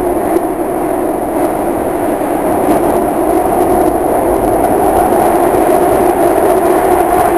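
Inside a SEPTA Market-Frankford Line Adtranz M4 subway car in motion: the steady, loud running noise of the train, a rumble with a held hum.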